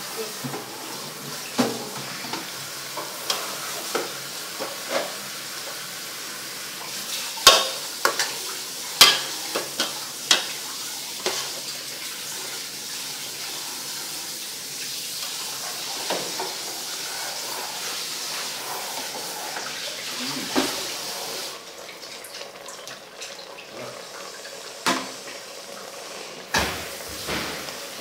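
Beef, tamarind leaves and spice paste sizzling steadily in an aluminium pot while a metal ladle stirs them, scraping and knocking against the pot at irregular moments. The sharpest knocks come about a third of the way in, and the sizzle softens about three quarters of the way through.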